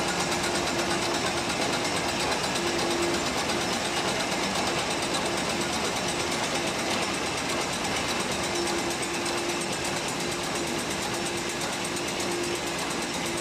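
High-speed sachet packing machine for spice powder running: a loud, rapid, even mechanical clatter, with a steady hum that fades out and returns.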